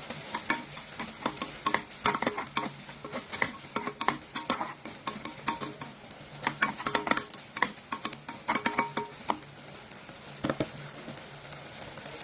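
A metal utensil clinking and scraping against a frying pan as shrimp are stirred, in quick irregular strokes with a lone knock near the end, over a steady sizzle of frying.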